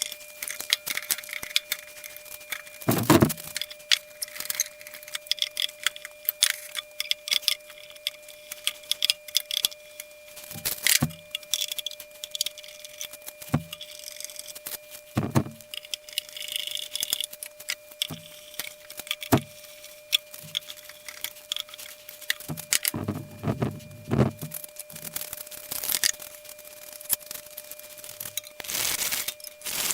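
Hand-tool work with small screws and metal bands on a wooden box: scattered metallic clicks and ticks, with heavier knocks about three seconds in and a cluster of them about two-thirds of the way through. A faint steady tone runs underneath.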